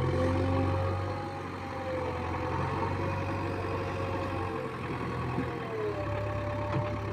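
Heavy diesel engine running steadily at low revs, with a faint whine that rises and falls slightly in pitch.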